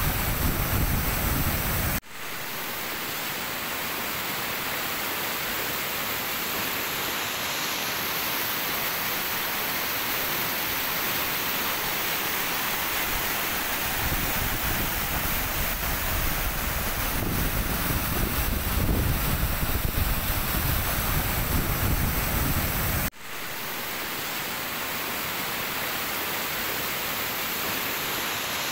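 River whitewater rapids rushing steadily, a dense even roar of churning water. It drops out sharply for an instant twice, about two seconds in and about twenty-three seconds in, with a deeper rumble for several seconds in the middle.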